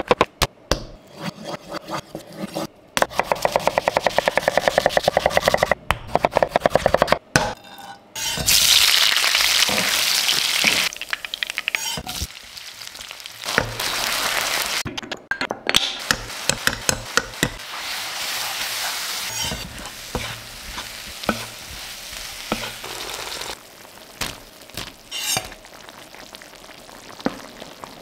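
Knife chopping rapidly through button mushrooms on a wooden cutting board. Then about eight seconds in, loud sizzling as food hits hot oil in a frying pan, followed by a wooden spatula stirring and scraping in the pan while the food fries and simmers, with scattered clicks.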